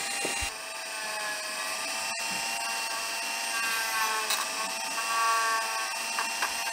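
Dremel rotary tool running with a felt polishing tip pressed against a chrome soap-dispenser spout: a steady high motor whine that wavers slightly in pitch as the bit is worked along the metal.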